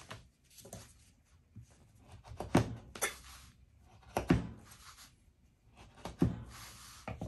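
A CJRB Tigris cleaver-style folding knife cutting through a leather belt down onto a plywood board: a series of sharp knocks as the blade goes through the leather and meets the wood, with leather and glove rustling between them.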